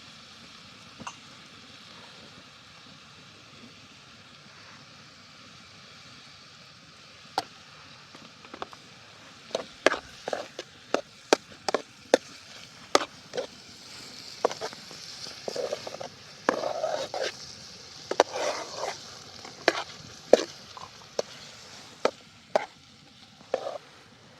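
Food sizzling in a frying pan with a steady hiss. From about a third of the way in, a utensil knocks and scrapes against the pan in irregular strokes while it is stirred.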